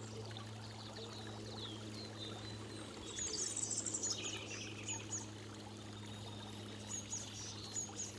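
Tiered garden fountain splashing steadily under a low hum, with small birds chirping over it, busiest about three to four seconds in.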